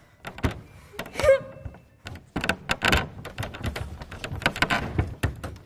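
Ballet pointe shoes knocking and tapping on a hard surface in an irregular run of sharp knocks, denser in the second half, with a brief squeak a little over a second in.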